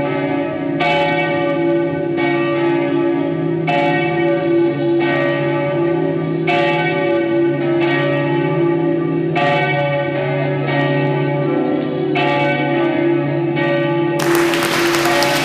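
Bells struck at a slow, steady pace, about one stroke every second and a half, each ringing on over a sustained low drone. About 14 seconds in the bells give way to the noisy sound of a large room.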